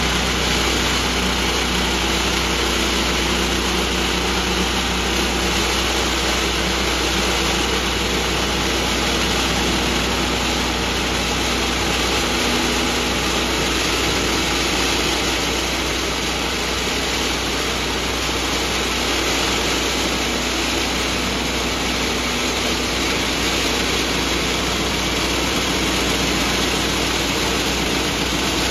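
Woodland Mills HM126 portable bandsaw mill running steadily, its small gasoline engine driving the band blade as it cuts lengthwise through a log.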